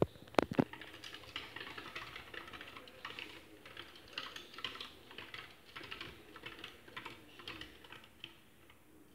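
Quick, irregular light clicks and taps, like typing, from a pet chipmunk moving about its cage on wooden perches and a wooden wheel, with a few sharp knocks in the first second.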